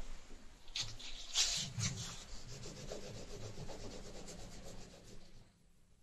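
Orange crayon scribbling on paper in quick, even back-and-forth strokes while colouring in an area, stopping about five seconds in.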